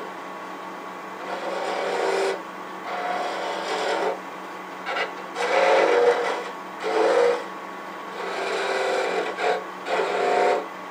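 Skew chisel cutting into a spinning wooden tool handle on a wood lathe, parting it off at the headstock end. It comes in about eight short scraping passes with brief pauses between them, over the lathe's steady hum.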